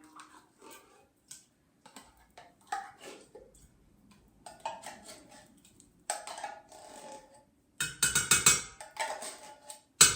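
A spoon scraping coconut milk out of a metal can and knocking against the can and the pot: a string of scrapes, clinks and clunks, loudest about eight seconds in.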